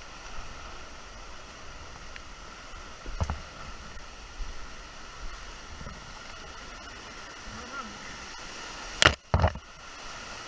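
Fast floodwater creek rushing steadily around a whitewater kayak, with the odd paddle stroke splashing. About 3 s in there is a low knock, and near the end there are two sharp, loud hits about half a second apart.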